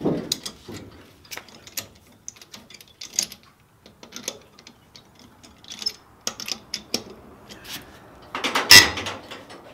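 Hand socket ratchet clicking in short irregular runs as it is swung back and forth on a wheel's lug nuts, working them loose, with metal clinks from the socket and handle. A louder metallic clatter comes near the end.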